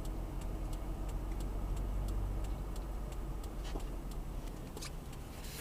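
A car's indicator flasher ticking evenly, a few ticks a second, over the low rumble of the car's cabin; the rumble falls away about four and a half seconds in.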